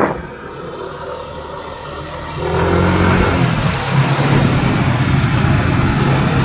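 Yamaha NMAX scooter's single-cylinder engine and the rush of wind and road noise while riding. About two and a half seconds in it grows much louder, as the scooter speeds up, to a steady drone.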